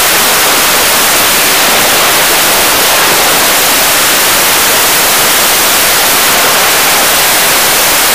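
Loud, steady hiss of static, even and unbroken, strongest in the high end.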